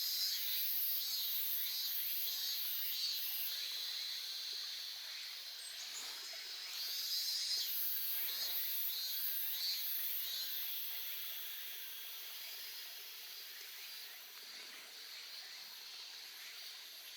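A small stream babbling softly, under a chorus of insects trilling in high pulses; the insect sound eases off in the second half.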